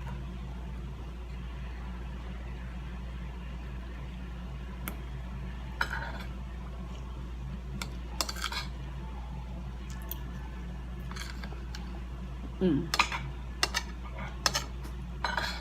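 Cutlery clinking and scraping on a plate while eating, a few scattered clicks at first and a denser cluster near the end, over a steady low hum.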